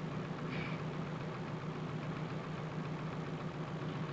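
An engine running steadily at idle, a continuous low drone with no change in speed.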